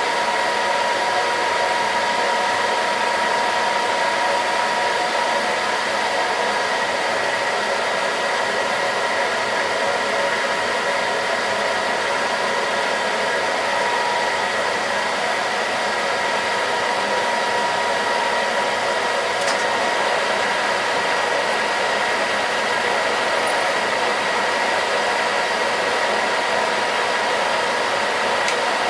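Metal lathe running at a steady speed with a constant whine while a small brass part is machined.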